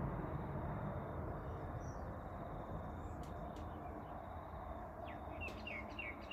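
A passing vehicle's rumble slowly fading away, then about five seconds in a bird chirping a quick run of short falling notes, about three a second.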